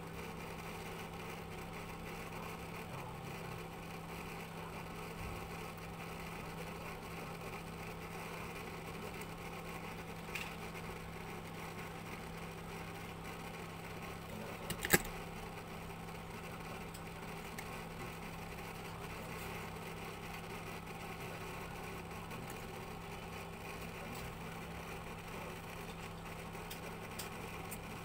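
A steady low electrical or mechanical hum with one sharp click about halfway through.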